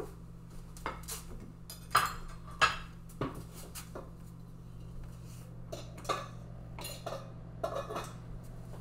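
Blue enamel stockpot and its lid clinking and knocking as the pot is handled and set down on the stove: a scatter of sharp knocks, the loudest about two seconds in, over a steady low hum.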